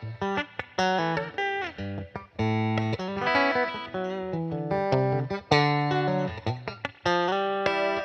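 Solo Fender Telecaster electric guitar playing blues: a steady run of picked single notes and chords, phrase after phrase with short breaks between them.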